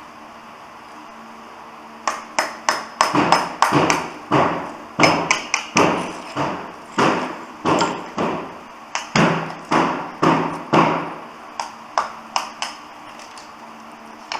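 Repeated sharp knocks on ceramic floor tile, roughly two a second with a short ring after each, starting about two seconds in and stopping near the end.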